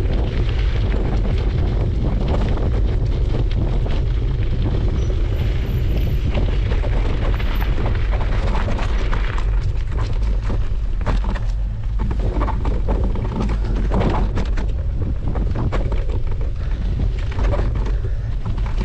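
Bicycle riding over an unpaved dirt trail: a steady heavy wind rumble on the action-camera microphone, with tyre crunch and frequent clicks and rattles from the bike jolting over bumps.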